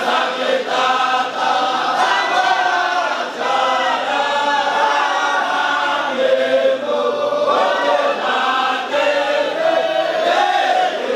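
A large group of men chanting a Sufi devotional chant (dhikr) together, their many voices running on in continuous, rising and falling melodic phrases.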